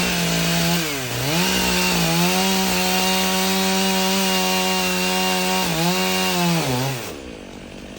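Two-stroke chainsaw running at full throttle while cutting, its pitch dipping under load about a second in and again near the end before the throttle is released and the engine winds down.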